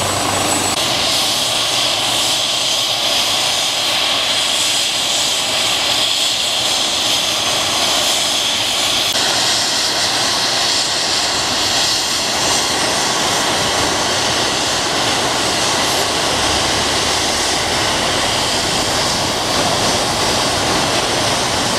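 Twin-turbine AW139 air ambulance helicopter running on the ground: a steady high turbine whine over the rush of the turning rotor.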